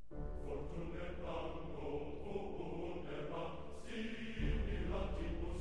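Background music with chant-like choral voices; a deep bass comes in a little past the middle.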